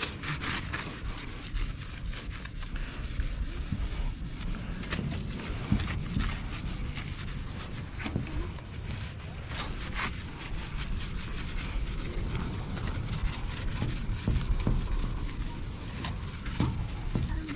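A sponge scrubbing over and over on the side panel of a box truck, an irregular run of rubbing strokes, working off old letter glue. A steady low rumble lies underneath.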